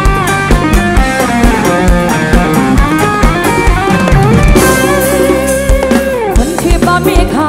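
Live rock band playing an instrumental passage over a PA: a plucked-string lead melody over drum kit and bass, with a steady kick-drum beat. Midway the lead holds a long wavering note that slides down about six seconds in.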